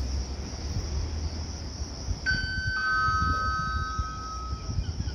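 High-speed train horn blowing a two-tone blast, from the approaching Alstom AGV 575 (Italo) EMU. A higher note starts about two seconds in, a lower note joins it half a second later, and both hold for about two seconds before stopping.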